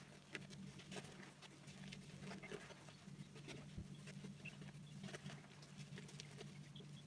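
Faint, irregular wet crackling and clicking from a shaving brush working shaving cream into a lather, over a steady low hum.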